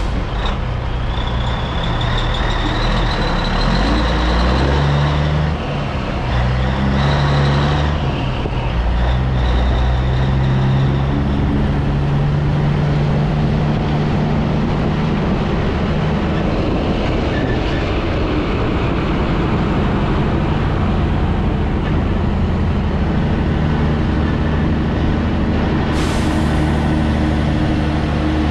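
Peterbilt 362 cabover semi's diesel engine pulling a loaded flatbed away, its pitch shifting up and down through the first several seconds as it gets rolling and works through the gears, then running steady under load.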